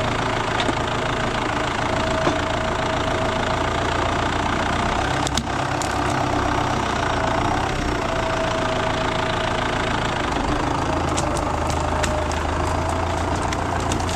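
Tractor engine running steadily, with a faint wavering whine and a few sharp clicks or knocks, one about five seconds in and several near the end.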